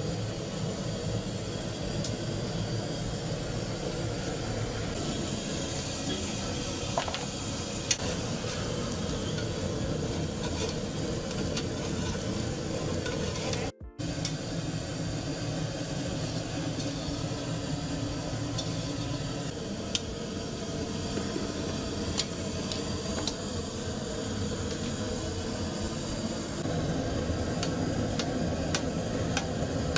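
Oil sizzling steadily in a kadai of deep-frying sesame balls on a gas burner, with a few sharp clinks of steel vessels.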